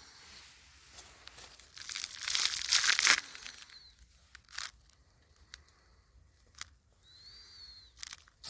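Rustling and crinkling noise, loudest about two to three seconds in, with a few short sharp clicks.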